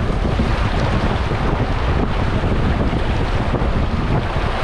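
Water rushing around a kayak as it slides down a river boat chute, with wind rumbling on the microphone.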